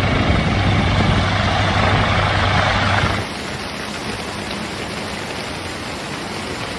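A steady engine hum over a loud rushing noise, cut off sharply about three seconds in and replaced by a quieter, even rushing noise.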